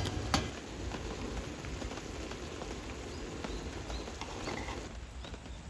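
Steady rain, an even pattering hiss, with two sharp clicks in the first half second.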